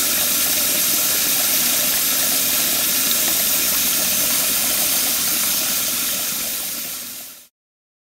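Faucet running a full stream into a sink already filled with water, a steady splashing rush with little air left sputtering in the line as the refilled water heater is purged. It fades out near the end.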